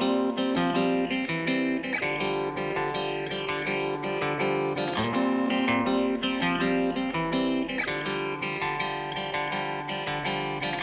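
Background music led by plucked guitar with a steady rhythm.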